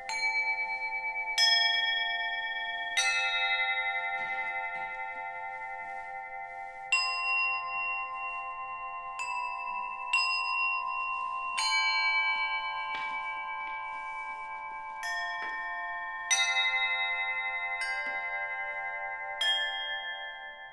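Medieval carillon of small bells struck with a hammer, playing a slow melody: about ten separate strikes, each note ringing on and overlapping the next.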